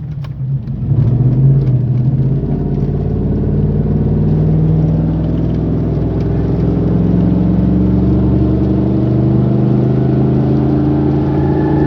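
A lifted 2008 Chevy Silverado 1500's unexplained noise, heard inside the cab at about 45 to 50 mph: a steady drone of several pitched tones that slowly rise in pitch as the truck picks up speed, with a thin higher whine joining near the end. It seems to come from the rear of the truck, and its cause is unknown.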